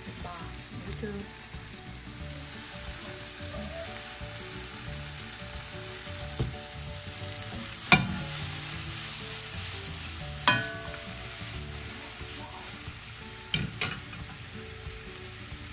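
Butter sizzling as sliced mushrooms and onions sauté in one stainless skillet and a steak fries with garlic in another. Four or five sharp metal clanks break the steady sizzle as the mushroom pan is shaken and set down on the stove grate, the loudest about eight seconds in.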